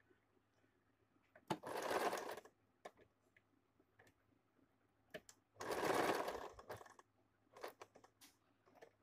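Electric domestic sewing machine stitching in two short runs of about a second each, stopping between them while the curved fabric piece is turned under the foot. Small clicks and taps of the fabric being handled fall between the runs.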